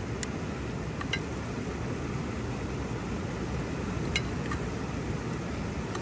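Steady rushing of river water pouring over a small weir, with a few short, light clicks near the start, about a second in and about four seconds in.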